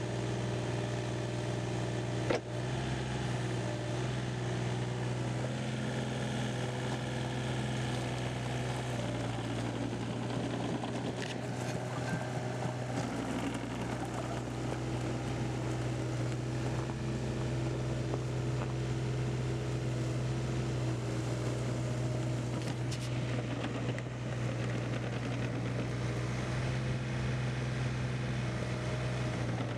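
Case CX36B mini excavator's 28 hp Yanmar diesel engine running steadily, with a few faint clicks or knocks, one about two seconds in and a couple more around the middle.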